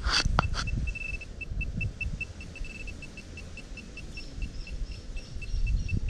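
Handheld metal-detecting pinpointer beeping in short even pulses, about four a second, the kind of pulsing that signals metal close to the probe. A few sharp knocks near the start and low handling rumble underneath.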